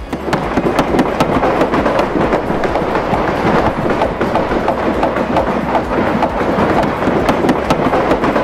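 Busy cabinet-assembly floor: a dense, loud clatter of many quick knocks and bangs at irregular spacing.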